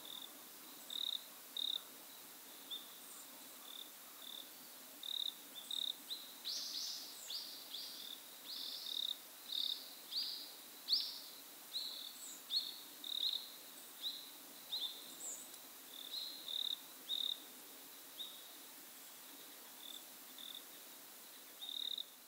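Insects chirping: short high chirps at one steady pitch, repeating about once or twice a second, with a run of louder, fuller chirps in the middle, over a faint steady background.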